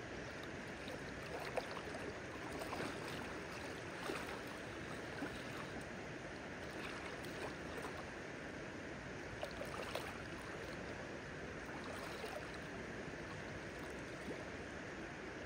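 Shallow river current running steadily over rocks, with a few brief ticks or light splashes standing out now and then.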